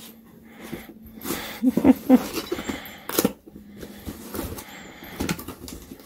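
A dog breathing and making small noises as it noses around an empty cardboard box, with cardboard rustling and a knock a little over three seconds in.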